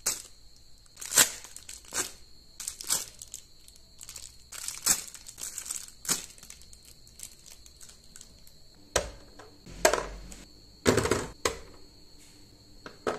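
Thin clear plastic bags crinkling and crackling in irregular bursts as small Beyblade parts are unwrapped by hand, with a few duller knocks near the end.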